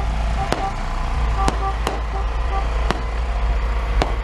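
Fireworks going off overhead: five sharp bangs, irregularly spaced about a second apart, over a steady low rumble.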